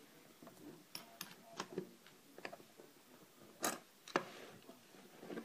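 Irregular small metallic clicks and taps as a 40mm Yale padlock and lock picks are handled, with a sharper clack a little past halfway.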